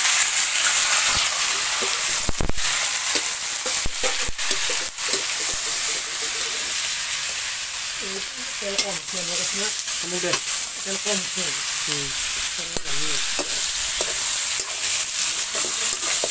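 Chicken pieces sizzling and frying in a wok over a wood fire, with a metal spatula stirring and scraping in the pan; a few sharp knocks of the spatula against the pan come in the first five seconds.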